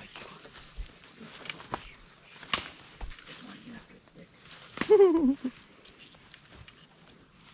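Steady high-pitched drone of an insect chorus, with scattered snaps and crunches of footsteps in leaf litter and twigs. About five seconds in, a short falling voice-like sound, the loudest thing heard.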